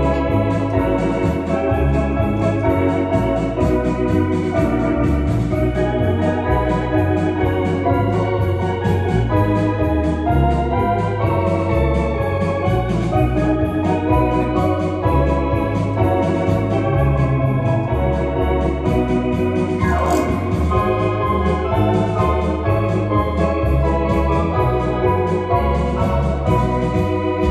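Ballpark organ playing a tune: sustained chords over a bass line that steps from note to note at a steady pace.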